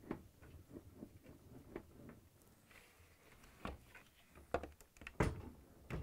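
Faint, scattered clicks and knocks from handling a Bosch built-in dishwasher as it is pulled out from under the counter, with one sharper knock about five seconds in.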